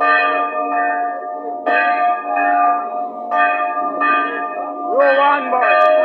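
Church bells being rung by hand after a service, struck about every 0.8 seconds, each stroke ringing on into the next.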